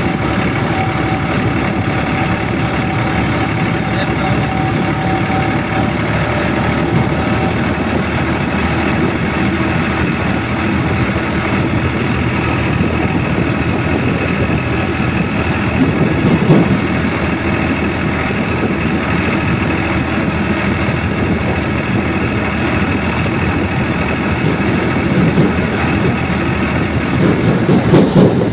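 A motor vehicle running steadily along the road: a continuous engine hum with road noise. It swells briefly about sixteen seconds in and again near the end.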